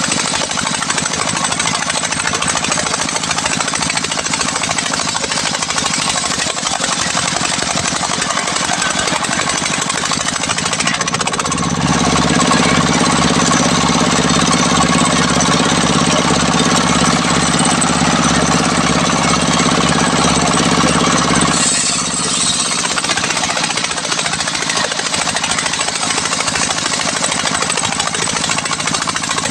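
Homemade engine-driven circular sawmill running, its large blade ripping a durian beam lengthwise into boards. The dense machine noise goes on throughout; about twelve seconds in it grows louder, with a steady low drone, for about ten seconds.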